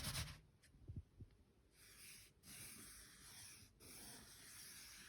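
Faint scraping of a letter being drawn through a layer of flour on a baking tray, in three strokes with short breaks, after two tiny ticks about a second in.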